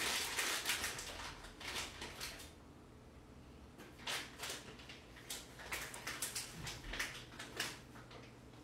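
Faint, scattered clicks and light knocks, in two loose clusters with a short near-silent gap between them.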